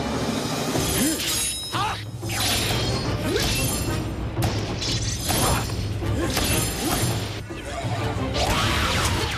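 Background music under a series of sword-fight sound effects: several sudden slash and impact hits with crashing, shattering noise.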